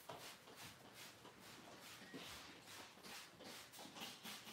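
Faint, quick repeated squirts of a hand trigger spray bottle misting cold water onto a Barbet's curly coat, wetting it down for marcelling.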